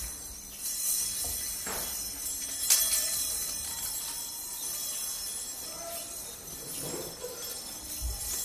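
Hanging stainless steel chopsticks clinking and jingling against one another as hands move through them, with the sharpest metallic clink about two and a half seconds in.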